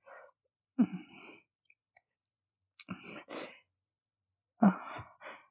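Breathy, non-verbal vocal sounds from a voice actor close to the microphone: short sighs and moans mixed with wet mouth noises. They come in four brief bursts about a second or more apart, each starting sharply, with silence between them.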